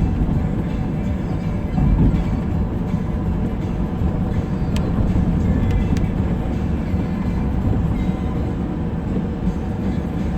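Car cabin noise while driving on wet roads in the rain: a steady low rumble of tyres and road, with music playing quietly on the car stereo. There are two faint ticks about five and six seconds in.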